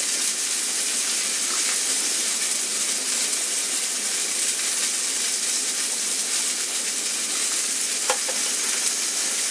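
Bacon-wrapped steak frying in a small cast iron skillet: a steady sizzle, with one faint click about eight seconds in.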